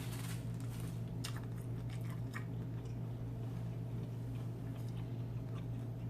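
A person chewing and eating, with a few sharp wet clicks of mouth and utensil sounds in the first couple of seconds and fainter ones after, over a steady low hum.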